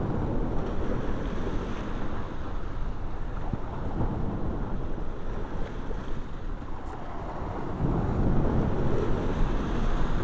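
Wind rushing and buffeting against the microphone, growing stronger near the end.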